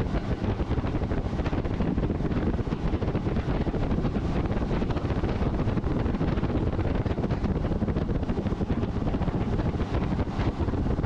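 Wind buffeting the microphone: a steady, rough rumble with a hiss over it.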